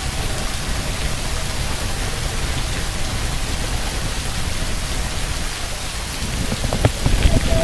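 Steady rain-like hiss of Niagara Falls' spray and falling water, under a low rumble of wind buffeting the microphone. The wind gusts grow louder and more uneven near the end.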